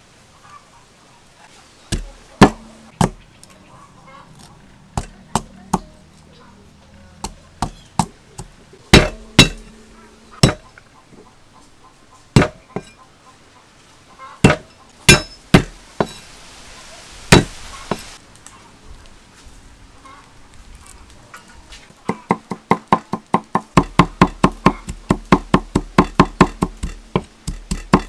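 Cleaver striking a wooden chopping board while cutting ginger: scattered single knocks at first, then fast, even chopping at about six strokes a second for the last six seconds.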